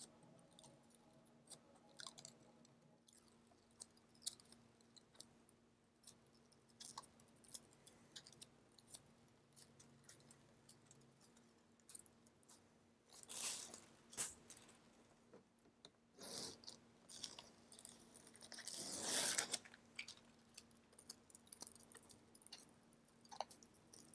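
Faint crackling and peeling of a rubbery Plasti Dip coating being pulled up off a car grille's edges together with masking tape. There are louder ripping stretches about 13 seconds in and again from about 16 to 19 seconds.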